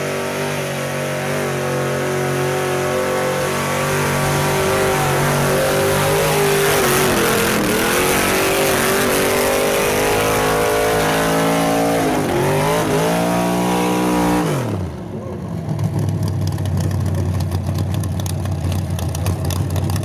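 Mud-bog pickup truck's engine held at high revs as it churns through a deep mud pit. The revs dip and climb back twice, then fall away about fifteen seconds in, leaving a lower, rough engine sound with crackling.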